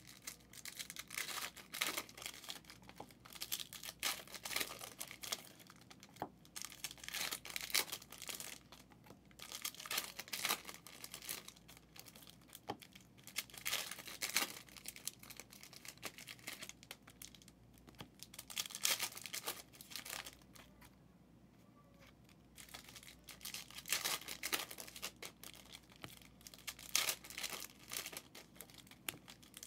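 Packaging on sealed trading card boxes being torn and crinkled by hand, in irregular bursts with a pause of about two seconds a little past the middle.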